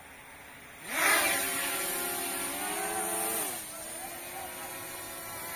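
Brushless motors and propellers of an L900 Pro SE MAX quadcopter spinning up suddenly about a second in for takeoff: a loud whine that rises in pitch and holds steady, then falls in pitch and eases off a little after about three and a half seconds.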